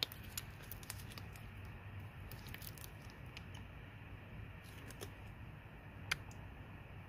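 Scattered light clicks and taps of metal parts as a brake pad retaining pin is worked through the caliper and pads against the pad spring, with one sharper click about six seconds in, over a faint low hum.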